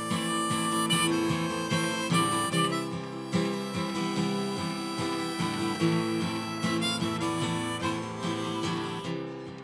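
Harmonica played in a neck holder, carrying the melody of an instrumental break over strummed acoustic guitar.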